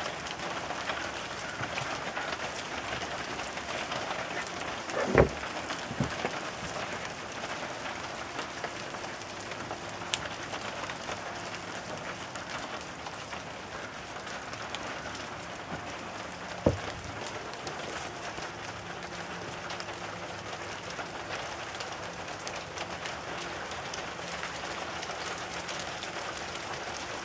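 Soft hail pattering steadily in a short shower, small pellets going splat on impact. A few sharper knocks stand out, the loudest about five seconds in and another near seventeen seconds.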